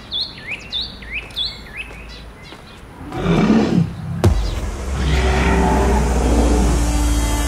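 Bird chirping in short, repeated, rising calls, then a dinosaur roar sound effect takes over about three seconds in: a loud, sweeping growl over a deep low rumble, with a sharp click near the middle.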